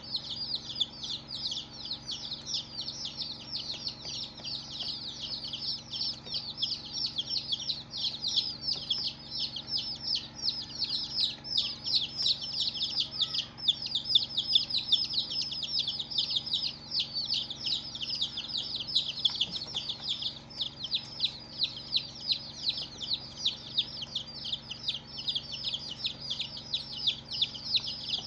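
A group of baby chicks peeping continuously: many short, high-pitched chirps overlapping in a dense, unbroken chatter.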